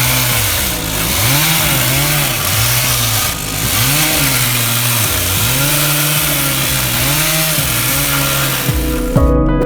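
A power saw cutting, its motor pitch dipping and recovering about once a second as it bogs under load, over a loud hiss.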